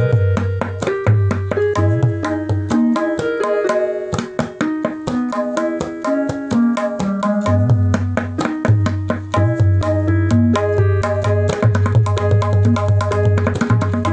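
Indian classical instrumental music: tabla playing a fast, even rhythm under a melodic instrument, with a deep bass drone that drops out for a stretch in the middle.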